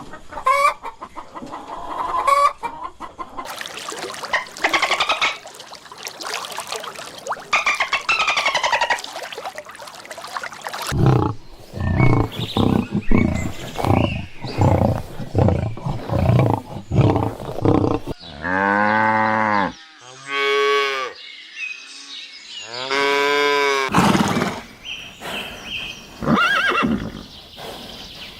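A sequence of different animal calls, one after another: chicken clucking and calls at first, then a run of short low grunts, then several long drawn-out calls.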